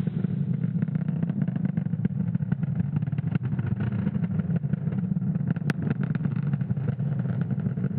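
Falcon 9 first stage's nine Merlin 1D engines firing during ascent: a steady, deep rumble with a dense crackle running through it, with the vehicle just short of supersonic.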